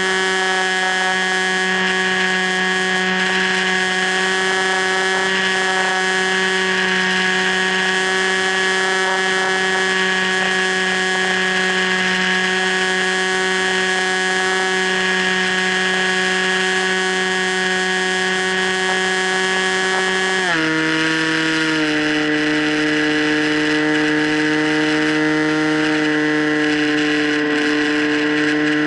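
Electric motor and propeller of an FPV Raptor RC plane running at a steady high pitch, then dropping to a lower pitch about two-thirds of the way through and holding there.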